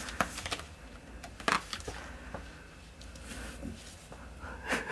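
Soft scuffs and a few sharp knocks from a cat pawing and rubbing against a sisal-rope scratching post and its mat. The loudest knock comes about a second and a half in.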